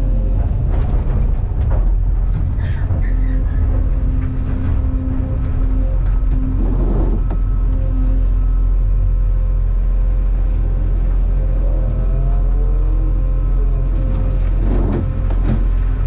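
Cat 390F excavator's C18 diesel engine and hydraulics running under load, heard from inside the cab, with a steady hydraulic whine. The bucket teeth scrape and crunch through blasted rock in the first few seconds and again around halfway, and near the end rock clatters as the bucket unloads into the dump truck.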